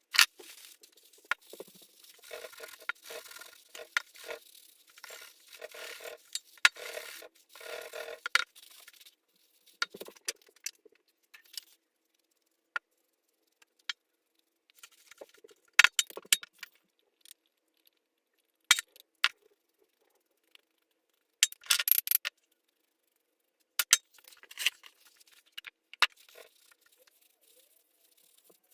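Hand finishing work on a wooden mallet: a run of short scraping strokes, then scattered clicks, clinks and brief scrapes.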